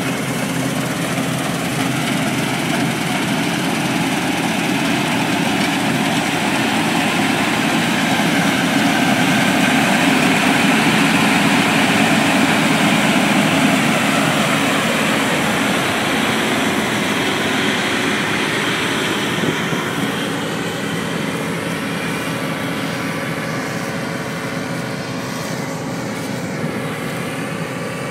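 New Holland TF 78 combine harvester running while harvesting, its engine and threshing machinery a steady noisy drone. It grows louder to a peak about halfway through, then slowly fades as it passes by.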